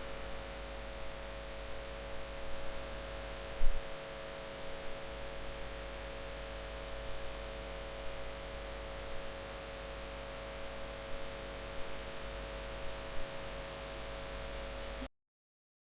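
Steady electrical hum of the recording chain: a few fixed tones over even hiss, with a few faint brief sounds on top. It cuts off suddenly about fifteen seconds in.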